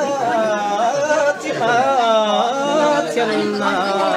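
A single voice singing a traditional Iu Mien song unaccompanied, in long wavering phrases that slide up and down in pitch.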